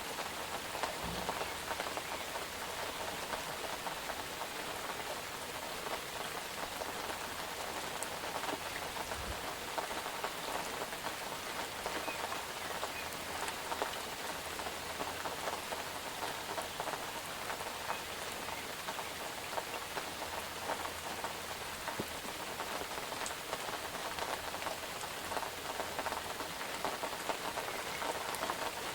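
Steady rain falling, with many small drop hits on a surface.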